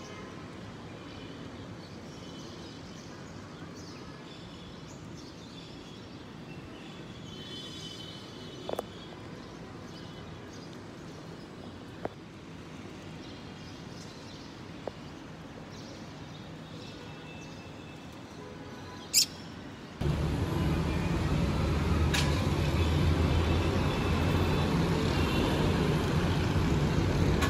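Quiet city ambience with birds chirping and a few sharp clicks. About twenty seconds in it changes abruptly to much louder, steady road-traffic noise.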